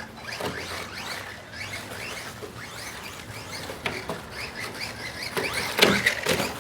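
1/10-scale electric RC rally car driving hard on a 3S battery, its motor whining up in quick repeated rising bursts as it accelerates. About six seconds in come a couple of loud knocks, the loudest sounds here.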